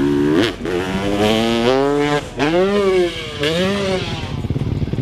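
Freestyle motocross dirt bike engine revving hard on the run-up to a jump ramp. The pitch climbs in a few pulls with short breaks between them, then rises and falls twice before the sound turns rough and uneven about four seconds in.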